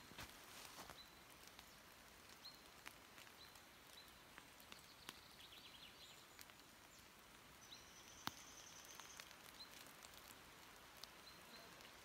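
Near silence with faint, high bird chirps recurring every second or so, a brief trill about five seconds in, and a thin high whistle held for about a second and a half near the eight-second mark. A few soft clicks also sound.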